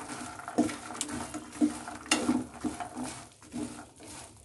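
Metal spatula stirring roasted makhana (fox nuts) through sticky melted jaggery in a non-stick kadhai, coating them in caramel: irregular scrapes and knocks of the spatula against the pan, with the light puffs tumbling.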